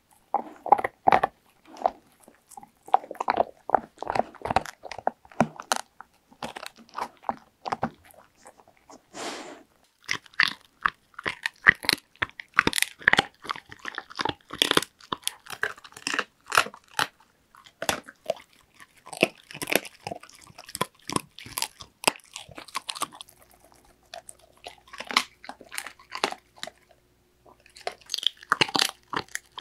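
Labrador retriever crunching and chewing a dried shark-cartilage treat close to the microphone: a long run of sharp, irregular crunches with brief pauses between bites.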